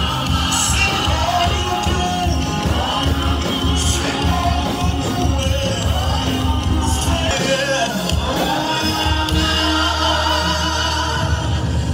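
Live worship music: a group of singers on microphones backed by a band, amplified through a PA and echoing in a large hall.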